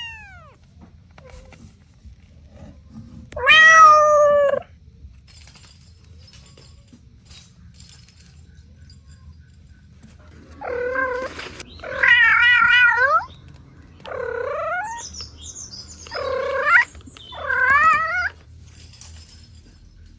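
Cat meowing: one meow about three and a half seconds in, then five more in quick succession over the second half, one of them with a wavering pitch.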